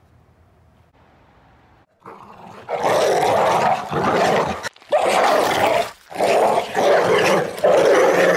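Dog growling: a string of loud growls, each about a second long with short breaks between, starting about two seconds in.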